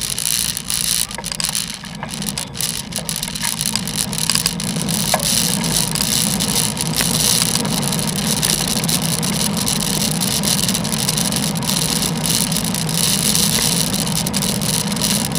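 Steady road noise from riding a bicycle on a wet road in the rain: a low rumble and a high hiss, with wind on the action camera's microphone.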